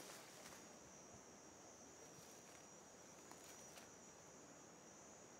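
Near silence: faint outdoor ambience with a steady high-pitched insect drone, like crickets or cicadas, and a few faint ticks.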